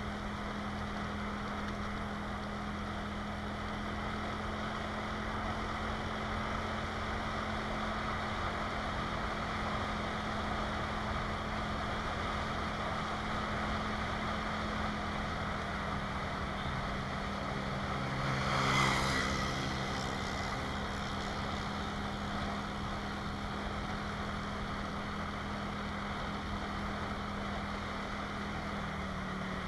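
Motorcycle engine running at a steady cruise, with wind and road rush on the action camera's microphone; the engine note drops slightly about halfway and comes back up near the end. A short, louder rush passes about two-thirds of the way through.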